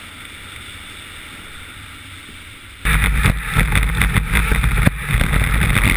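Iceboat sailing at speed, heard from a camera mounted on its hull: a steady low hiss, then about three seconds in a sudden loud rush of wind buffeting the microphone, with a heavy rumble underneath.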